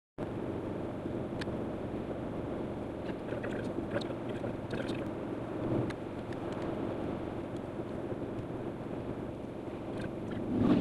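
Steady road and engine noise heard inside a moving car's cabin, a low rumbling hiss with a few faint small clicks, swelling louder at the very end.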